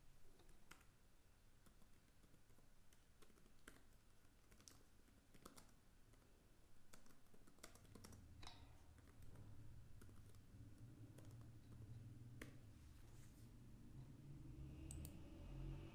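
Faint, scattered clicks of computer keyboard keys as a line of code is typed, over near silence.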